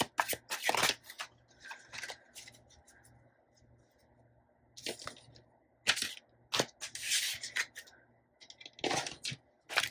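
A deck of oracle cards being shuffled by hand, a quick run of card flicks and rustles for about the first second. After a short lull, a few scattered slaps and rustles as cards are laid down and slid on a hard tabletop.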